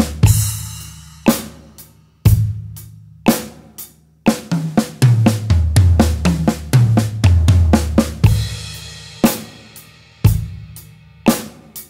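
Drum kit played slowly at 60 beats per minute. It opens on a crash, then bass drum and snare on the beats with light hi-hat, then a one-bar sixteenth-note fill in a left-hand-led seven-note sticking (L R L R L R R, L R L R L R R, L L) that moves down the toms. The fill lands on a crash about eight seconds in, and another bar of the same slow groove follows.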